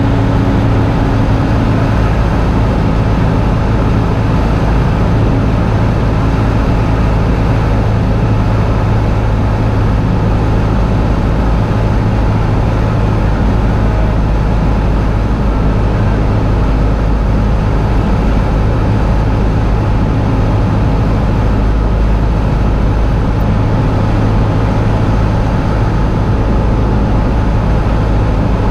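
Steady drone of a light Cessna's piston engine and propeller heard inside the cockpit on final approach to land.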